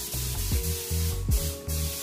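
Gravity-feed compressed-air paint spray gun spraying, a steady hiss of air and paint that breaks off briefly twice in the middle, over background music with a steady beat.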